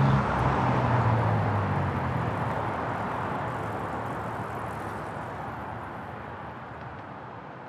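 The end of the background music fading out. Its last low notes die away in the first two or three seconds, leaving a steady rushing noise that fades slowly toward silence.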